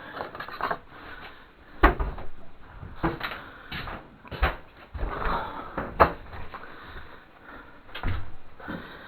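Irregular knocks and clatter of hard objects being handled and set down, with two sharper knocks about two seconds in and again about six seconds in.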